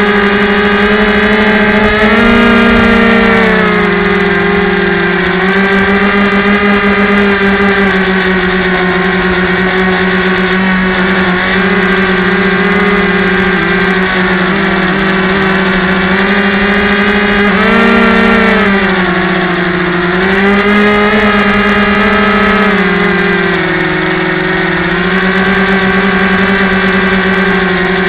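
Small rechargeable electric motor and propeller of a Yellow Bee RC trainer airplane, heard close up from the onboard camera, running with a steady high hum. The pitch rises and dips a little a few times.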